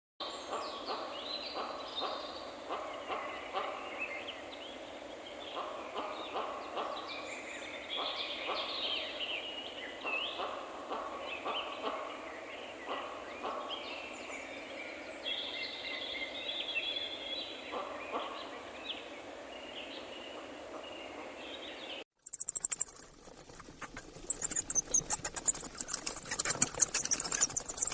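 Autumn forest ambience with small bird calls and light rustling. About 22 seconds in it cuts abruptly to louder, close scratching and rustling with high-pitched squeaks of mice.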